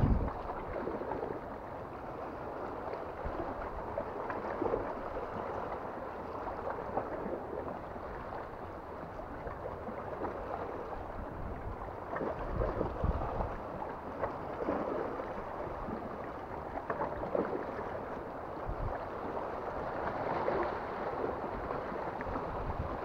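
Sea water washing and sloshing among shoreline rocks, a steady rush that swells and eases every few seconds, with low thumps now and then.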